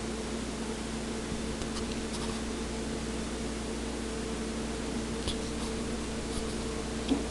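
Steady background hum and hiss, with a few faint clicks and one small tick near the end.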